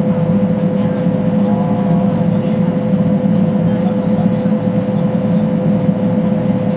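Boeing Jetfoil's twin Allison gas turbines and waterjet propulsion running under way, heard inside the passenger cabin: a loud, steady drone with a constant mid-pitched whine.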